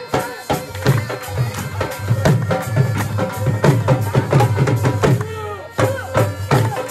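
Live dhol drum beating a quick, steady jhumar rhythm under a been, a reed pipe, playing the melody over a held drone. The drumming breaks off for under a second about five seconds in while the melody carries on, then starts again.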